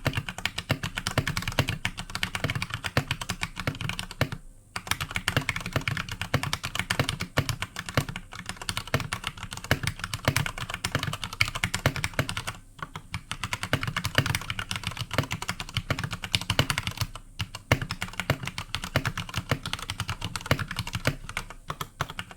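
Fast, continuous typing on an iKBC Poker II mechanical keyboard with Cherry MX Red linear switches, a dense run of key clacks. It breaks off briefly about four and a half, twelve and a half and seventeen seconds in.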